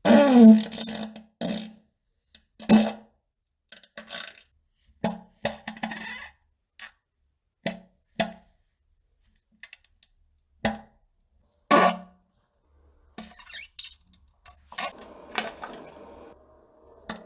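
A string of short fart sounds, about a dozen separate blasts spaced a second or so apart, the first sliding down in pitch. Near the end they give way to a denser, noisier stretch of sound.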